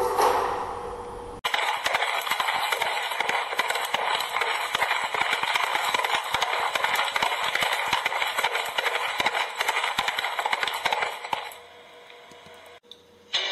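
Dense, steady clattering and crackling noise made of many quick irregular clicks. It starts suddenly about a second and a half in and cuts off abruptly near the end.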